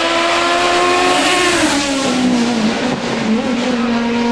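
Sports prototype race car engine running at high revs up the hill, its note dropping in steps about a second and a half and two seconds in, then holding steady at a lower pitch as the car passes.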